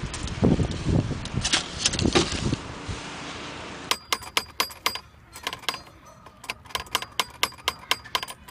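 Low thuds and rustling noise, then, after a cut about four seconds in, a goat working the metal knob of a coin-operated feed dispenser with its mouth: a quick run of sharp metallic clicks with a ring to them, about four a second, like a ratcheting crank.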